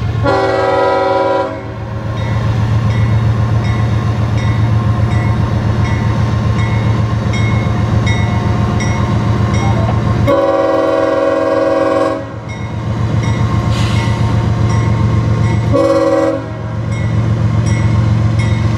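Freight train led by two GE ES40DC diesel locomotives sounding its horn for a grade crossing: a long blast, a second long blast about ten seconds later, then a short one, over the steady rumble of the locomotives' diesel engines. A crossing bell rings about twice a second.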